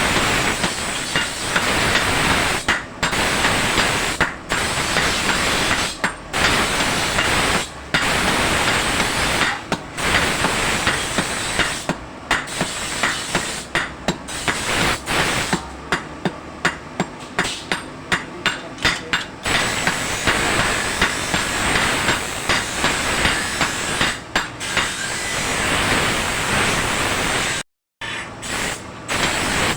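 Blacksmith hammering steel on an anvil while forging a dagger blade, strike after strike over a steady loud hiss, with a brief complete cutout near the end.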